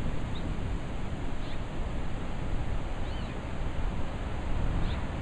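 Gusty wind buffeting the microphone and moving through leafy trees, with a bird chirping faintly four times.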